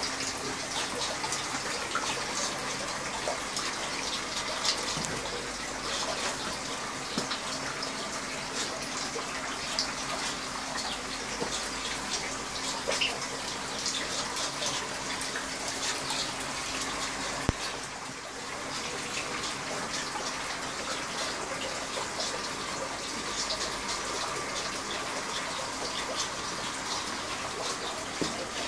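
Water running and splashing steadily in an aquaponics system, with a steady hum underneath and a single sharp click partway through.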